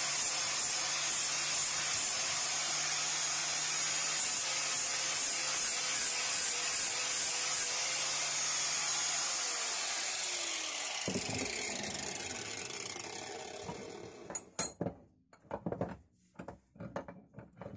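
Angle grinder with a 60-grit disc grinding the rough casting of a cast-iron vise body: a steady hiss over the motor's hum. About ten seconds in the grinder is switched off and winds down with falling pitch, and near the end a few knocks and clicks follow as the metal parts are handled.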